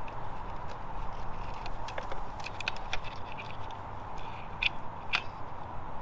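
Light handling noises of the alarm unit being fitted under a motorcycle seat: scattered small clicks and taps, with two sharper clicks near the end, over a steady background hum.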